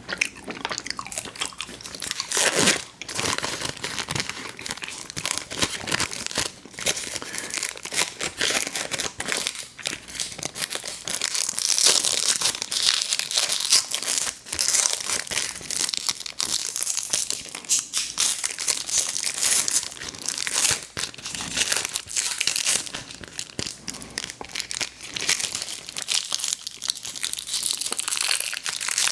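Plastic candy wrappers crinkling and tearing close to the microphone, in a dense, irregular crackle, mixed with the sounds of chewy candy being eaten.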